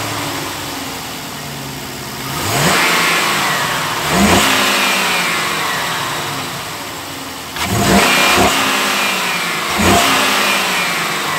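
Chevrolet Caprice police car's 6.0-litre LS V8 idling and revved briefly four times, each rev rising quickly and dropping back to idle. It runs smoothly and quietly, with no ticking or bearing noises from the accessories, which the owner takes as a sign of an engine in very good condition.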